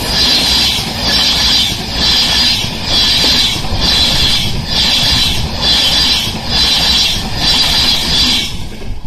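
InterCity 225 electric express (Mark 4 coaches with a Class 91 locomotive) passing at speed. A loud, high wheel-on-rail hiss swells and dips about once a second as each coach goes by, over a steady low rumble, and falls away sharply as the last vehicle clears near the end.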